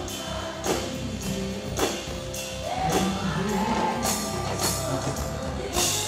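Live band music with a woman singing over a steady drum beat.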